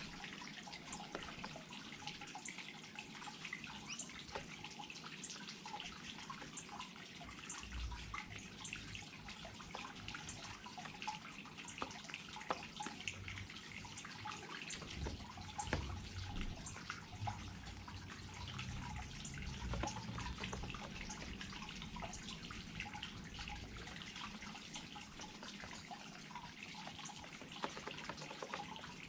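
Small garden waterfall running steadily, its water trickling and splashing with many fine drips, and a low rumble now and then.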